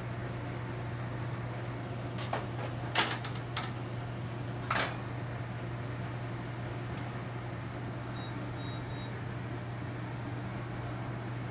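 Centrifugal casting machine spinning its arm inside a sheet-metal shield during a platinum casting: a steady low hum, with a few sharp clicks between about two and five seconds in.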